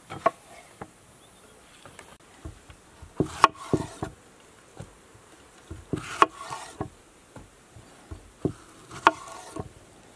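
Large kitchen knife cutting through whole tomatoes on a wooden cutting board. The blade knocks sharply on the board about every three seconds as each tomato is halved, with softer cutting sounds and taps in between.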